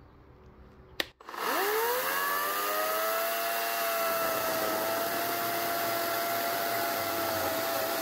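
EGO 56-volt brushless battery chainsaw: a click about a second in, then the motor spins up with a quick rising whine and runs at a steady pitch as the chain cuts through a pressure-treated wooden post.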